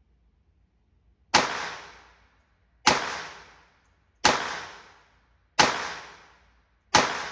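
Five shots from a 1968 FN Baby Browning .25 ACP vest-pocket pistol, fired one at a time about a second and a half apart, each sharp crack followed by a fading echo.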